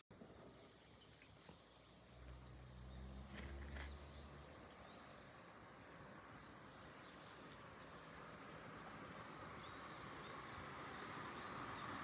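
Faint outdoor ambience with steady, high insect chirring. A low hum comes in for a couple of seconds about two seconds in, and a soft rushing noise grows slowly louder toward the end.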